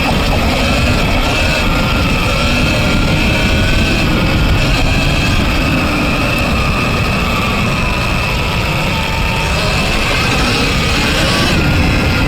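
Surron Ultra Bee electric dirt bike with a TORP TM50 Pro motor under way: the motor's whine rises and falls with the throttle over a steady higher whine and a dense low rumble from the drivetrain and terrain.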